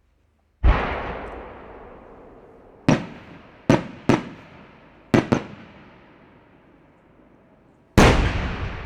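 Aerial firework shells bursting. A heavy boom about half a second in dies away in a long echo. Five sharper reports follow in quick succession over the next few seconds, then another heavy boom comes near the end.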